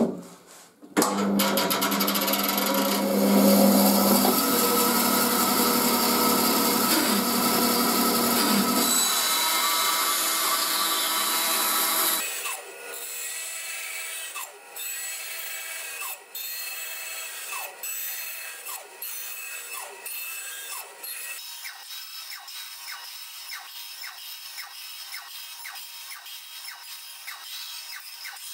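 A bandsaw starts about a second in and runs with a steady hum as its blade cuts into the end of a round wooden handrail. The handrail is turned against the blade to reduce its end to a dowel. After about twelve seconds the sound drops and thins to a quieter scratching, repeated in regular strokes, as the wood keeps rubbing on the blade.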